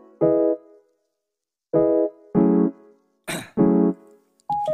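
Background music: short electric piano chords played in stabs, mostly in pairs about half a second apart, with silent gaps between them and a short noisy hit a little past the middle.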